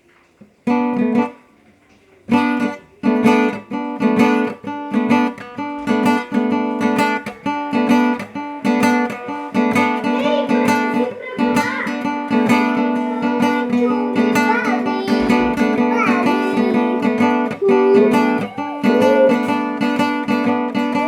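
Acoustic guitar (violão) being strummed. A single chord rings out, then after a short pause a steady run of strummed chords continues.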